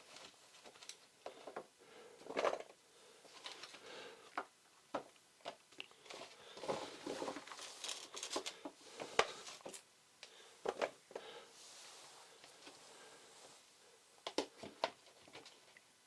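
Small potatoes being dropped by hand into a plastic bag, making irregular knocks and thuds, with the bag crinkling as it is handled.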